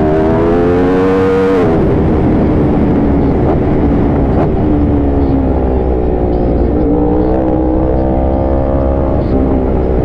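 Yamaha R1 sport bike engine under way with a steady low rumble. Its pitch rises for the first second and a half and then drops sharply. It runs lower and steadier, climbs again about seven seconds in, and drops once more near the end.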